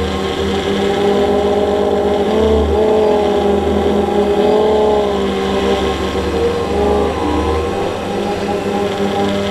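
Quadcopter drone's propellers and motors whining steadily in flight, several pitches wavering slightly up and down as the motors adjust speed, over a low rumble.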